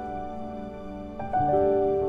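Slow, gentle background music of held keyboard notes, with new notes struck about a second and a half in.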